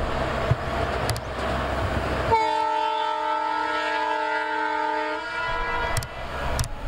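Rail track-tamping machine running with a low rumble, then about two seconds in its horn sounds one long blast of several tones together, held for about three seconds.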